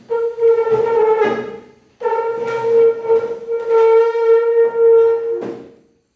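Wooden bed frame's legs scraping across a glazed tile floor as the bed is pushed, giving a loud, steady squeal. It breaks off just before two seconds in, then starts again for a second, longer squeal that ends about half a second before the end.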